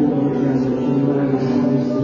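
Live worship band music: a sustained chord held on keyboard and guitars, with voices holding long notes over it.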